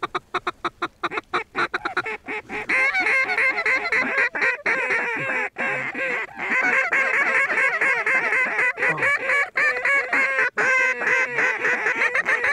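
Duck and goose calling: a fast, even run of short quacks, then from a couple of seconds in many loud, overlapping quacks and honks with only brief breaks.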